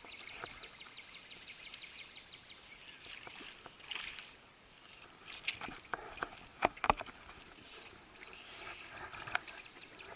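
Fishing-boat handling noise: light ticking and a few sharp clicks and knocks over a faint hiss of wind and water.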